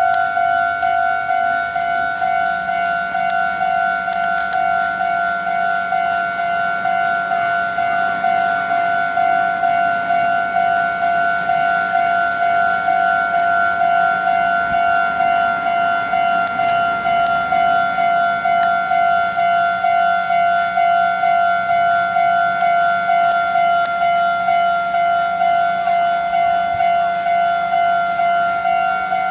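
Japanese railway level-crossing warning bell ringing continuously with an even, rapid clang, signalling that a train is approaching.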